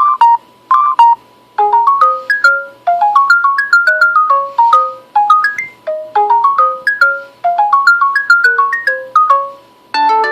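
An LG G4 stock ringtone playing: a quick two-note figure sounds twice, then a fast melody of short ringing notes climbs in repeated phrases. Just before the end it stops and the next ringtone begins.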